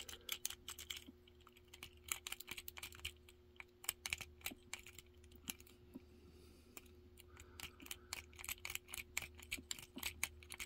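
Rake picking a Master Lock 410 padlock: a City rake worked in and out against the pins under a tension tool, giving rapid, irregular light metal clicks. The pins are being overset by the raking, with tension eased to get the lock to open. A faint steady hum lies underneath.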